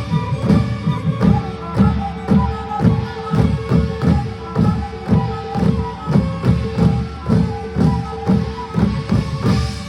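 Manipuri drumming on pung barrel drums: a steady, fast rhythm of hand strokes with a held note sounding underneath.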